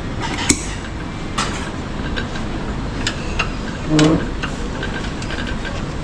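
Scattered clinks of plates and cutlery over a steady low background rumble, with a short vocal sound about four seconds in.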